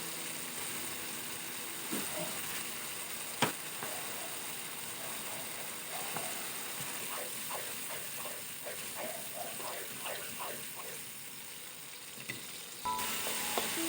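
Food frying in a pan, a steady sizzle, with a knock about 3.5 s in and a run of light utensil scrapes and clinks in the middle.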